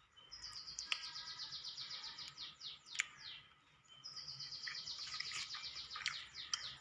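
A small bird singing two rapid trills of high, quick downward chirps, each about two seconds long, the second starting about four seconds in. A sharp click falls between them, about three seconds in.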